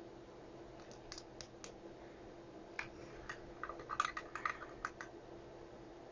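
Scattered small clicks and taps from equipment being handled on a workbench: a few about a second in, then a denser run of them from about three to five seconds in, over a faint steady hum.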